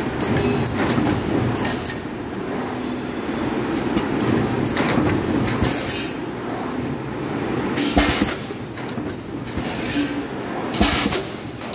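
PET bottle blow-moulding machine running: a steady mechanical clatter from the preform conveyor, broken every few seconds by short hisses of released compressed air, with a couple of sharper knocks.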